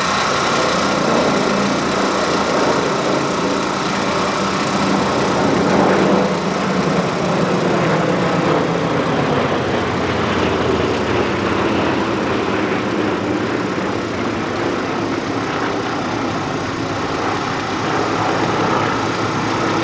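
Piston engines of World War II warbird fighters flying past in formation, a steady multi-engine drone whose pitch falls over several seconds in the middle as the planes pass.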